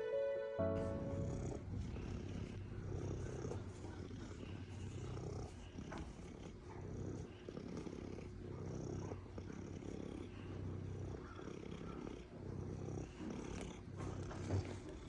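A domestic cat purring, a steady low rumble. Background music cuts off within the first second.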